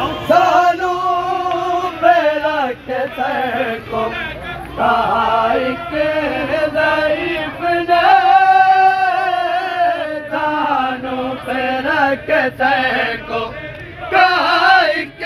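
Men's voices chanting an Urdu noha, a Shia lament for Imam Hussain, in long wavering melodic lines that rise and fall and are held on sustained notes.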